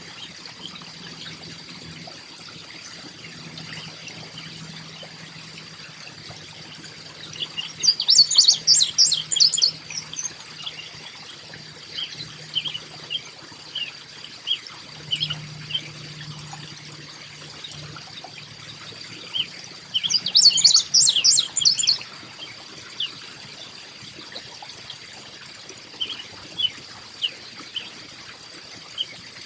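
Backyard songbirds singing: two bursts of rapid high notes, about 8 and 20 seconds in, with scattered single chirps between and after them.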